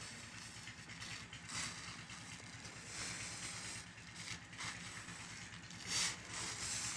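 Dry rustling and crunching as handfuls of red granular insecticide are scooped into a crinkling plastic bag, with several brief louder rustles, the biggest about six seconds in, over a faint low rumble.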